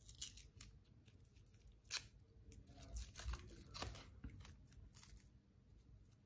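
Faint clicks and light scrapes of thin laser-cut plywood ornament pieces being handled and fitted together. A handful of small taps, the clearest about two seconds in, with a few more a second or two later.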